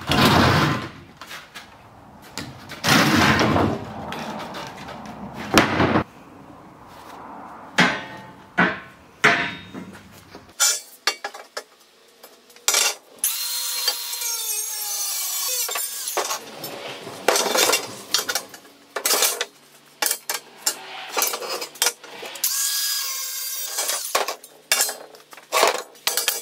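Steel tube door frame clanking and knocking against the plywood-topped table as it is handled. About halfway through, an angle grinder runs on the steel for a few seconds, with more short bursts of grinding and knocks later.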